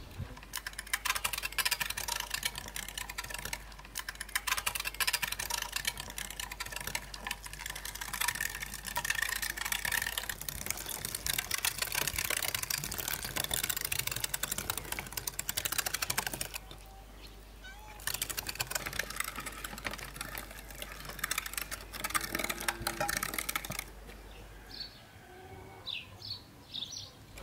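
Hand-cranked meat grinder mincing raw meat: a dense run of crunching, clicking noise as the handle is turned. It breaks off briefly about 16 seconds in and dies away about 25 seconds in. A few bird chirps follow near the end.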